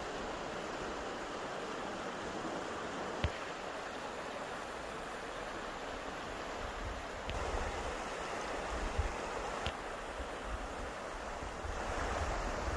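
Shallow mountain stream running between snow and ice, a steady rush of water. From about halfway a low rumble and a few knocks sit under it.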